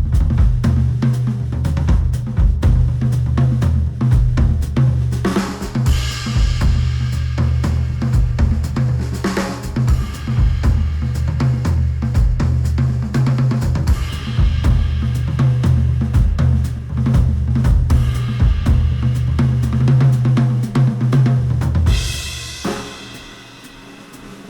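Instrumental music with a full drum kit (kick, snare, hi-hat and cymbals) over a heavy bass line, played through Sennheiser headphones and picked up by microphones placed at the earcups. About two seconds before the end, the bass and drums drop out and leave a quieter, high cymbal-like wash.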